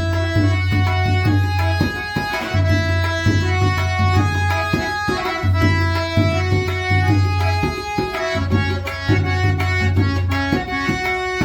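Three-line scale-changer harmonium playing a melody in held reed notes, accompanied by tabla strokes with a deep, resonant bass drum tone.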